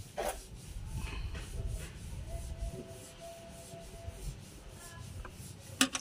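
Rubbing and handling noise as a hand works at the speed controller's gain adjustment inside the generator control box, with a sharp knock near the end.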